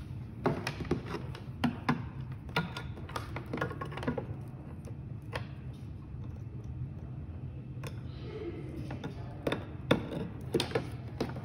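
Small plastic clicks and taps of hands handling an Arduino CNC shield and working a stepper motor's cable connector in and out, irregular and scattered, over a steady low hum.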